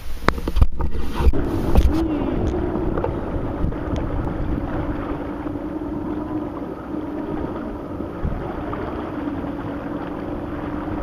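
Jet ski engine running steadily at low speed, with a brief rise and fall in pitch about two seconds in. A few knocks in the first two seconds come before it.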